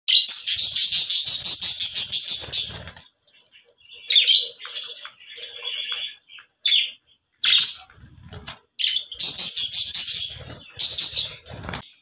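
A group of budgerigars chirping and warbling in fast, dense chatter, with short lulls about three and seven seconds in.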